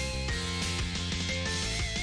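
Upbeat rock-style theme music with guitar and a steady drum beat.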